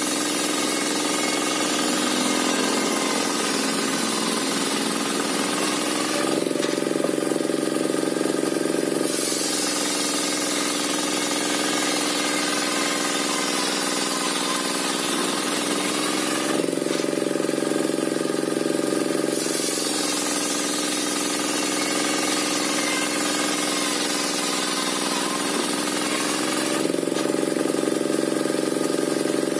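Belt-driven bench circular saw (serkel) ripping waru wood: the saw's motor runs steadily under the hiss of the blade cutting through the timber. The cutting hiss drops away three times for a couple of seconds between cuts, and the motor's pitch rises slightly as the load comes off.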